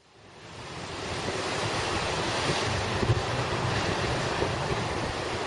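Storm waves on Lake Superior crashing on a rocky shore and breakwater, a steady rush of surf, with gale-force wind buffeting the microphone as a low rumble. The sound fades in over the first second or so.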